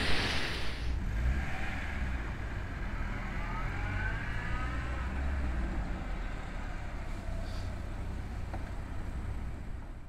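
A short rush of noise at the very start, then a road vehicle's engine running with a steady low rumble and a faint whine that rises a few seconds in, as when pulling away.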